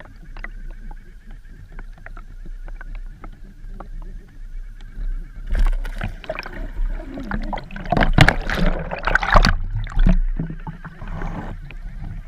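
Underwater water noise with scattered clicks and knocks. From about five seconds in it turns into a louder stretch of churning and knocking, close to the microphone, as a fish strikes the bait right by the camera.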